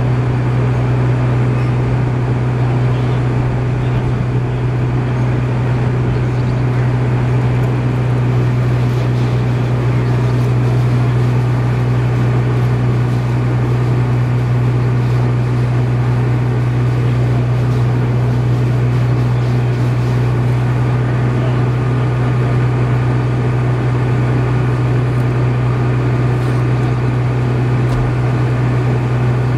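Steady machine hum, like an engine or motor running at a constant speed, with a strong low tone that does not change.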